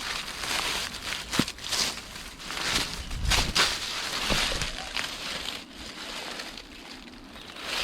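Footsteps crunching and scuffing over dry ground, an uneven run of steps with rustling between them.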